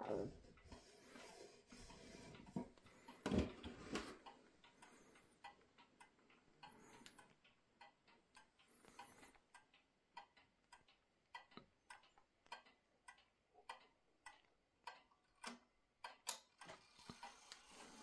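Antique FMS (Mauthe) Vienna regulator pendulum wall clock ticking faintly and evenly, with a few louder knocks in the first few seconds.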